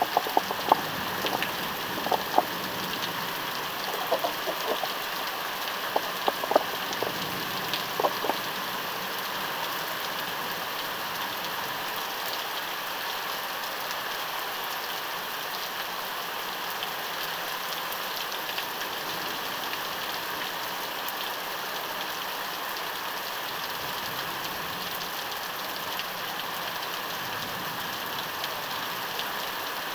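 Heavy rain falling steadily in a thunderstorm, an even hiss with a few sharp taps during the first eight seconds; no thunder.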